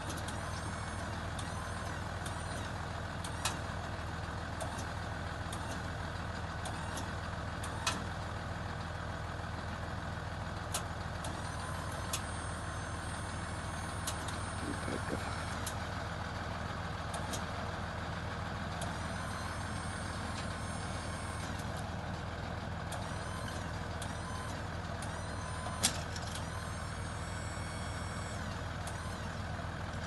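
Truck engine running steadily with an even low hum, with a few sharp clicks over it, the loudest about 26 seconds in.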